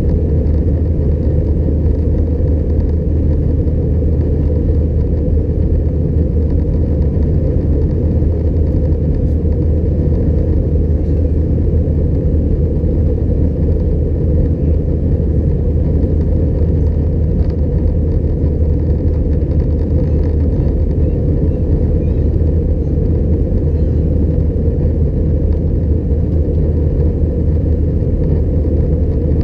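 Cabin noise of an Airbus A320-211, its CFM56 engines and the airflow making a loud, steady low rumble heard from a window seat.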